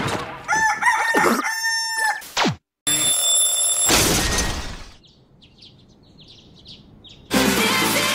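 Anime soundtrack: a high, drawn-out cry lasting about two seconds, then a steady high tone and a loud crash of a fist smashing into a wooden floor. After a brief hush, electronic dance music starts near the end.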